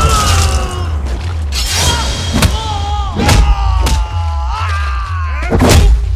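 Fight-scene soundtrack: a heavy background score with a pounding bass and a voice-like gliding line. Several hard punch and hit impacts cut through it, about five in all, at the start and then spread through the rest.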